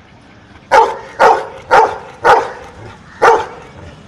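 Golden retriever barking five times, short loud barks about half a second apart with a longer pause before the fifth, counting out its answer to a sum by the number of barks.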